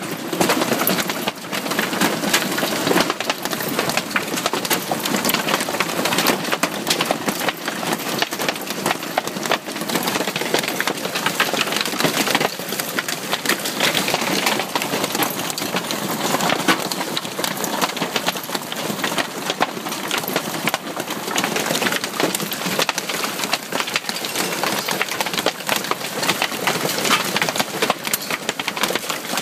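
Heavy hailstorm: large hailstones pelting down without a break, a dense, continuous clatter of hard impacts.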